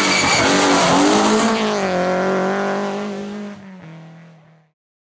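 Rally car engine at high revs as the car goes past, its note dipping and then settling lower and steadier as it moves away. The sound fades and cuts off abruptly a little before the end.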